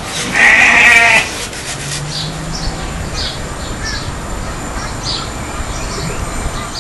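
A single loud, drawn-out bleat from a farm animal, about a second long, followed by a run of short, high bird chirps about twice a second.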